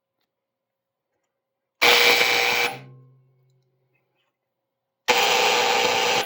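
Fire alarm signal from a 1966 Autocall SA-3 fire alarm system: two loud blasts of about a second each, roughly three seconds apart. Each cuts off sharply and rings out briefly.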